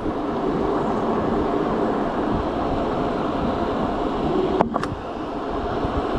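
Riding noise on an electric bike at speed: steady wind and road rush with a faint steady hum, and one sharp knock about two-thirds of the way through.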